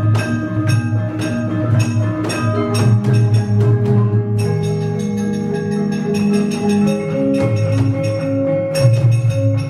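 Javanese gamelan music: struck metallophones play a busy run of ringing notes over steady low tones.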